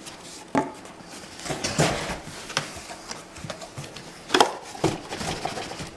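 A large cardboard box with a computer case packed inside being handled and tipped to work the case out: scraping, rustling and irregular knocks, the sharpest knock about four and a half seconds in.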